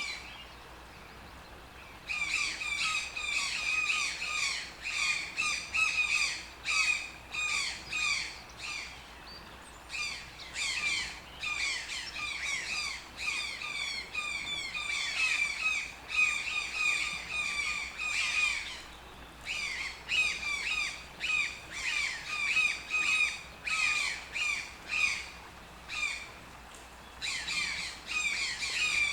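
Toucan calling: long runs of short, harsh, rapidly repeated croaking notes, broken by a few brief pauses between bouts.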